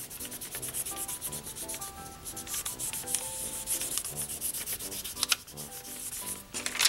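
Pencil rubbed quickly back and forth over tracing paper on a soft rubber printing block, a fast run of scratchy strokes, transferring the pencil drawing onto the block. A couple of harder strokes come near the end.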